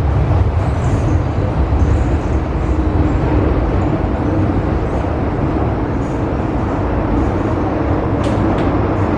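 MTR M-train electric multiple unit running through a tunnel, heard from inside the car: a steady low rumble of wheels and running gear on the track. A few sharp clicks come near the end.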